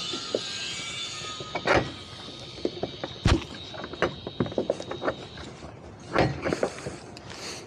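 Scattered knocks, clicks and thumps of gear and lines being handled on a boat's deck, the loudest about three seconds in, after a steady high hiss fades out in the first second and a half.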